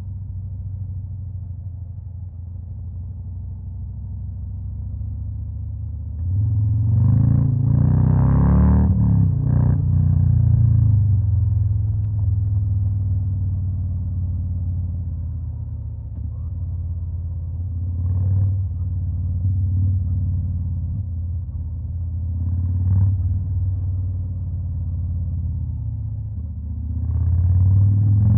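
2021 Harley-Davidson Fat Boy's Stage 2-tuned Milwaukee-Eight V-twin idling. About six seconds in it is revved up, held for several seconds and then settles back to idle. A couple of short throttle blips follow, and it revs again near the end.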